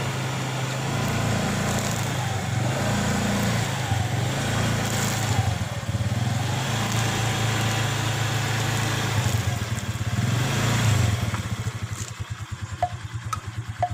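Motor scooter engine running steadily at low speed while the front wheel rolls over the sticks, then slowing into separate putters and fading about eleven seconds in.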